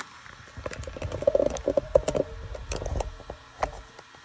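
Handling noise from the phone that is recording: irregular knocks, taps and rubbing close to its microphone, over a low rumble.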